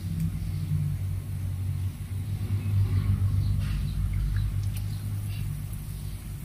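Battered, meat-stuffed chillies deep-frying in a wok of hot oil, with faint scattered crackling pops, a little busier after another piece is lowered in partway through. A steady low rumble that swells in the middle is the loudest sound.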